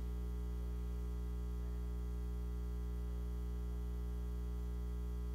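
Steady electrical mains hum, a low buzz with a ladder of overtones, from the church's sound and streaming system while no one speaks into the microphone.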